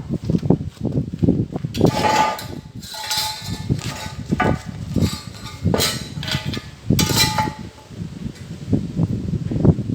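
Irregular knocks and clinks of steel pieces being handled, a few of them ringing briefly.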